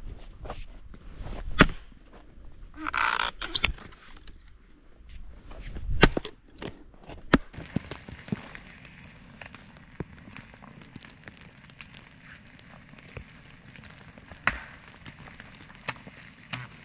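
Boots crunching in snow and a few sharp wooden knocks, then a soft steady outdoor hush with scattered small clicks and crackles from a small campfire.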